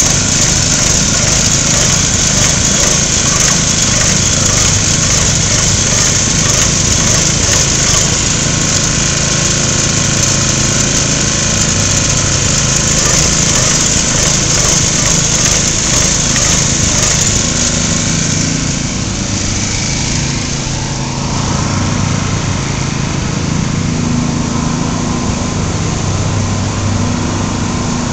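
Small gasoline engine of a walk-behind airless line-striping machine running steadily, with a high hiss of paint spraying from its gun that fades out about two-thirds of the way through while the engine keeps running.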